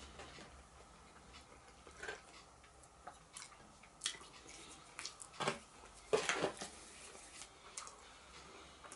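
Quiet eating sounds: chewing and mouth noises with scattered soft clicks and taps, the loudest a cluster a little past the middle.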